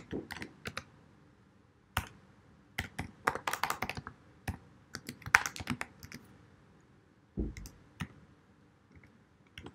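Typing on a computer keyboard: quick runs of key clicks in bursts, with short pauses between them, and a duller thump about seven and a half seconds in.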